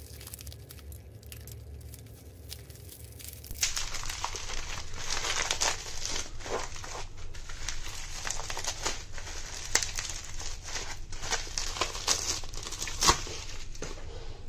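Bubble wrap crinkling and rustling as it is pulled off a glass bottle, getting louder and denser about three and a half seconds in, with a sharp knock near the end.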